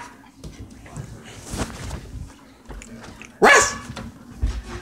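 A dog, worked up during rough play-biting, barks once loudly about three and a half seconds in, amid quieter scuffling.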